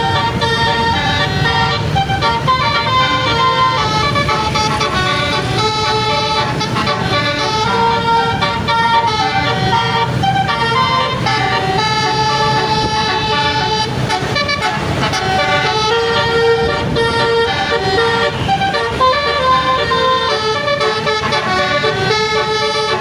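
Indonesian bus 'basuri' musical horn playing a continuous melody of sustained horn notes that change pitch every fraction of a second, over the low running of the bus engine.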